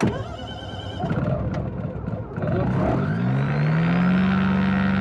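The mast-mounted two-stroke engine of an ASG 32 Mi self-launching glider being started: the propeller cranks over unevenly for a couple of seconds, then the engine catches about two and a half seconds in. Its pitch rises and it settles into a steady run.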